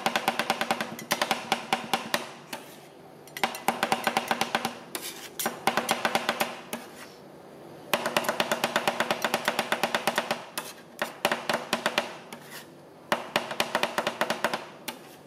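Two metal scrapers chopping ice cream on a steel cold plate: rapid runs of metallic taps, roughly eight a second, with the plate ringing under them. The runs are broken by short pauses about a second, three, seven and twelve seconds in.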